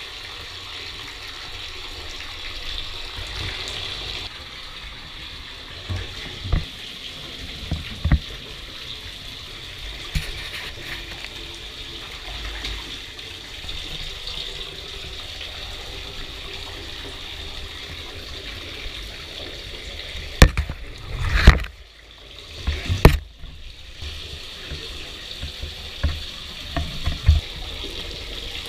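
Handheld shower spray running steadily into a bathtub, heard through a waterproof camera housing. Several knocks and thumps cut through the water noise, the loudest cluster about two-thirds of the way in.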